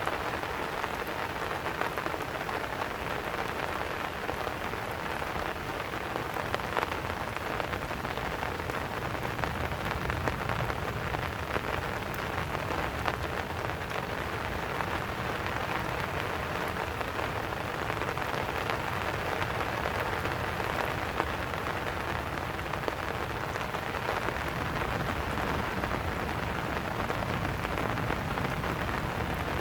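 Steady rain falling: an even hiss of many drops, with scattered sharper ticks of individual drops landing close by.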